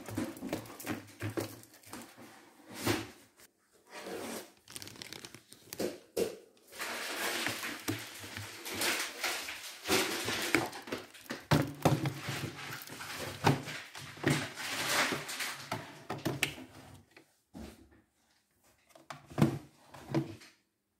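Small cardboard juice boxes being handled and packed one after another into a plastic organizer bin: irregular light knocks, scrapes and rustling of packaging, with a short pause near the end.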